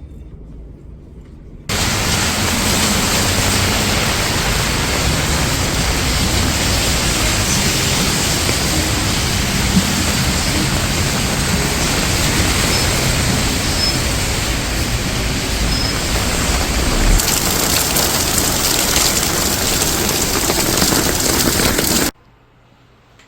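Loud, steady rushing hiss that starts suddenly a couple of seconds in and cuts off just as suddenly near the end.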